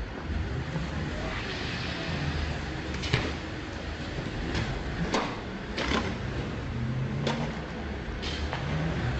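Armoured police Land Rover with its engine running, struck by a series of sharp bangs from blows and thrown objects hitting its bodywork, about six in all, the loudest about three seconds in.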